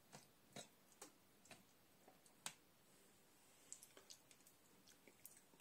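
Near silence with faint light clicks, about two a second for the first two and a half seconds, then a few scattered ones near the end.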